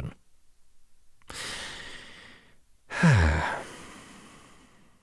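A man draws a breath in, then lets out a long sigh whose voice drops in pitch and fades away. It is an exasperated sigh of frustration.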